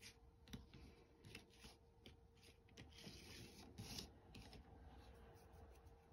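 Faint hand-shuffling of a tarot card deck: soft, irregular rubbing and light clicks of card sliding against card.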